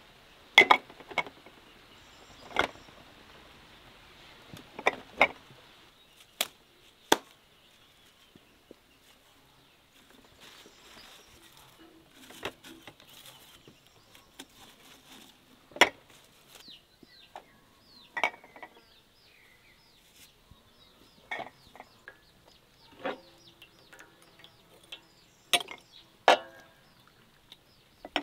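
Glass jars clinking and tapping in scattered, separate knocks as lemon slices and herb sprigs are dropped into them and the jars are moved.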